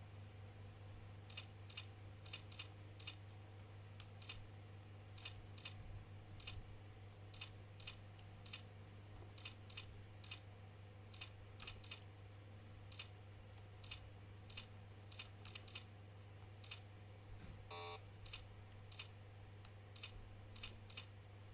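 Unhurried typing on a keyboard: light key clicks at an uneven pace, about two a second, over a steady low hum, with one short buzz near the end.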